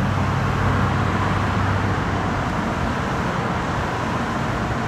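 Steady traffic noise, with a low engine hum that fades out over the first second or two.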